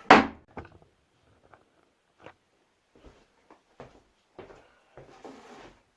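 A sharp clack right at the start, then a smaller click and scattered faint clicks, knocks and light handling noises in a small room.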